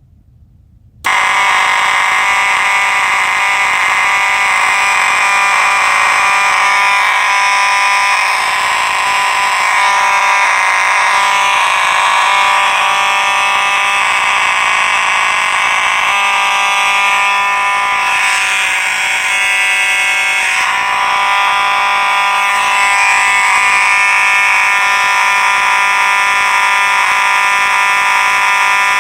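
Faraday 6226 and 6227 fire alarm horn strobes sounding in a test: a loud, continuous buzzing horn tone with no pulsing. It starts about a second in and cuts off suddenly near the end.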